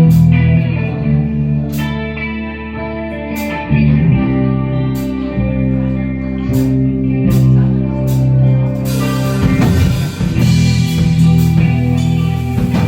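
A rock band playing: guitar holding long, low sustained chords with scattered drum hits, and cymbals filling in from about nine seconds in.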